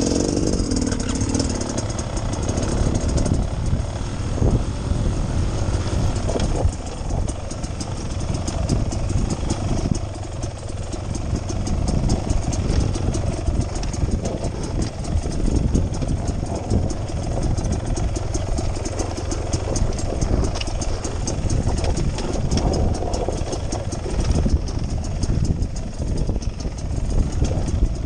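Beta Xtrainer 300 two-stroke dirt bike engine running steadily at low revs while the bike rides slowly along a trail, heard from the rider's helmet.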